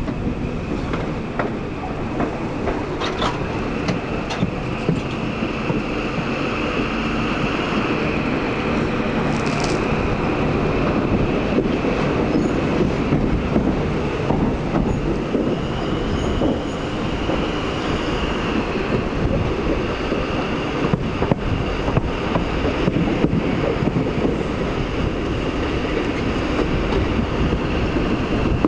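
East Midlands Trains HST with VP185-engined Class 43 power cars under way, heard from an open coach window: a steady rush of wind and running noise with a high whine, and sharp clicks of the wheels over rail joints. The whine rises slightly in pitch about halfway through.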